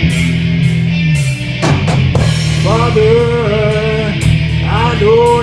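Live rock band playing: electric guitars, bass and a drum kit in a full-band intro. A held, wavering melodic line comes in about halfway through, then comes back after a short break.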